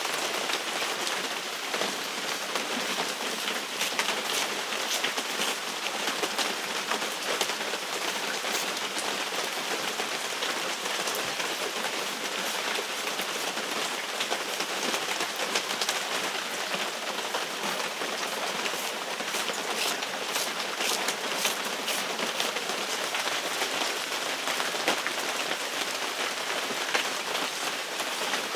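Steady hiss like rain falling on a surface, with many fine pattering ticks throughout.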